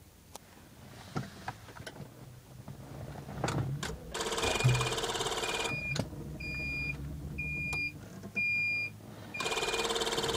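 Starter motor cranking a Honda Civic EF's B18B engine for about two seconds without it firing, then a string of short high electronic beeps, then cranking again near the end. The engine does not start.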